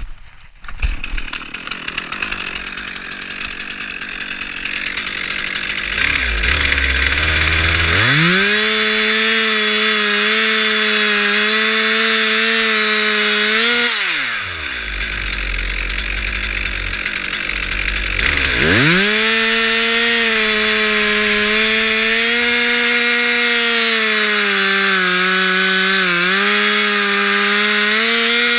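Two-stroke chainsaw cutting into a tree trunk: it is throttled up to a high steady pitch for about six seconds, drops back to idle, then is throttled up again for a longer run, its pitch dipping briefly as it takes load in the cut.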